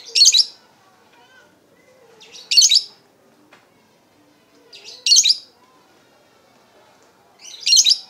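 Lovebird giving four high-pitched calls, each about half a second long, spaced about two and a half seconds apart.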